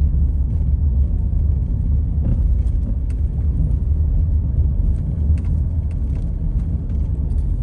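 A car driving along, a steady low rumble of road and engine noise heard from inside the cabin, with a few faint clicks.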